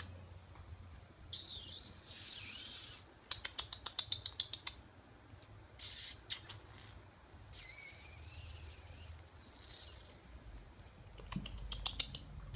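Kittens scrambling about on cat shelves: runs of rapid claw clicks and patches of scratchy scrabbling, coming and going several times.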